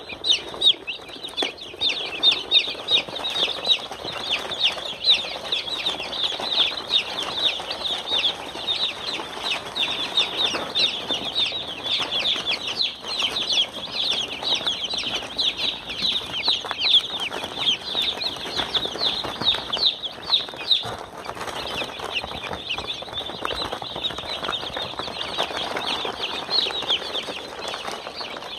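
A brood of baby chicks peeping: many short, high peeps overlapping in a constant chorus, thinning briefly about two-thirds of the way through.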